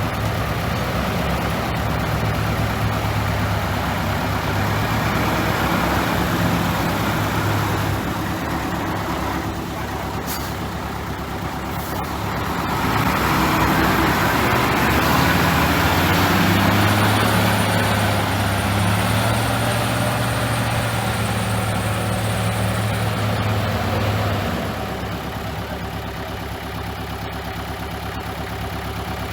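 Heavy diesel engine of earthmoving equipment running under load, louder and working harder through the middle and easing back a few seconds before the end.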